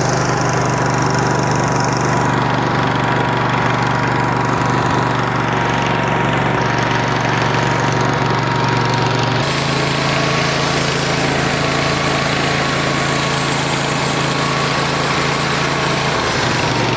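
Portable band sawmill's carbureted gas engine running steadily, with a thin steady whine over it; the running note shifts about nine and a half seconds in and again near the end, as the mill's battery and hydraulic powered functions are worked.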